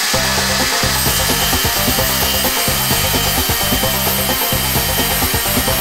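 Angle grinder with a wood-cutting disc, set to a medium speed, running at high speed and sawing along a plywood board: a steady high whine with rough cutting noise.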